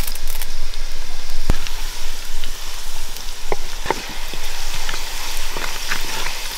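Curry leaves, green chillies, ginger and garlic sizzling in hot coconut oil in an earthenware pot, stirred with a wooden spatula that knocks against the pot a few times.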